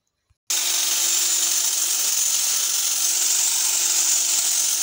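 Falcon mains-powered electric pole hedge trimmer switched on about half a second in, then running steadily with a constant motor hum under a loud, high buzzing hiss of the reciprocating blades.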